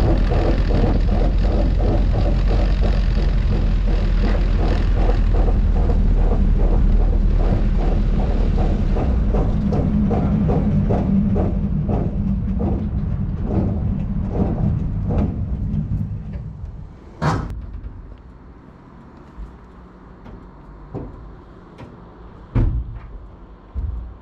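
Mk1 Ford Fiesta rolling to a stop with a heavy low rumble and a repeated knock that slows as the car slows, from about three a second down to about one a second. This is the sign of the front-left brake caliper, ripped off the hub through its plastic carrier, fouling the wheel. About sixteen seconds in the rumble and knocking die away, leaving a few separate clunks.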